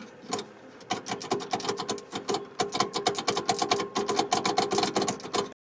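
A Zaporozhets's starter circuit clicking rapidly and irregularly as the starter is fed directly, without the engine cranking: the starter is not turning over.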